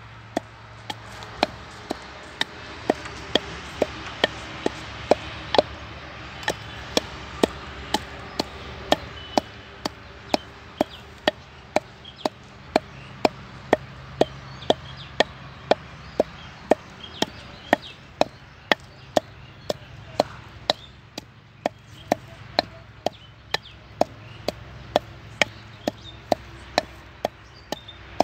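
Wooden pestle pounding red chillies in a mortar: steady, evenly spaced knocks about one and a half a second.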